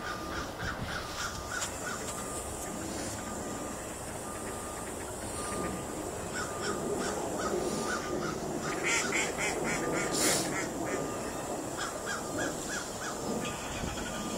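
Canada geese honking, many short calls in quick series, busiest about two-thirds of the way through.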